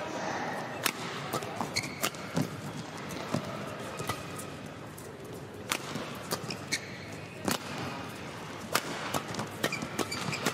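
Badminton rackets striking a shuttlecock in a fast doubles rally: sharp, uneven cracks roughly every half second to second, over the hum of an indoor arena. Short high squeaks of court shoes come in between.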